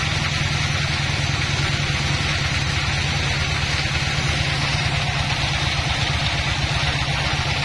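Log bandsaw mill running steadily, its band blade sawing lengthwise through a dry log, with a constant low motor hum under the hiss of the cut.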